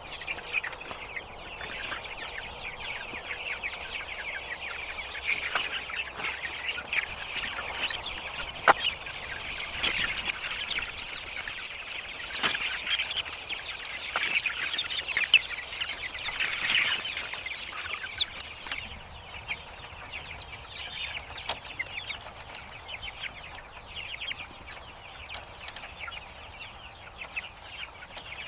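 Flock of young chicks peeping continuously, many short high calls overlapping, with a few sharp clicks. A steady high-pitched hum runs underneath and stops abruptly about two-thirds through.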